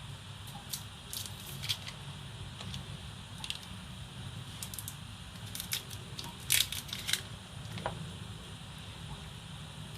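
Irregular light clicks and taps of hands handling food, containers and utensils during kitchen food preparation, with a sharper double click about six and a half seconds in, over a low steady hum.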